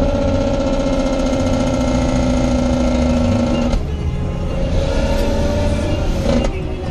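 Steady engine and road noise inside a moving Kia car's cabin, with music from the car stereo playing underneath.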